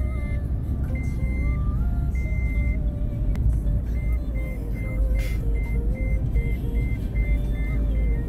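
Car driving along a road, heard from inside the cabin: a steady low road and engine rumble under background music with a melody. A high beeping note repeats in it, becoming short regular beeps about three a second from about four seconds in.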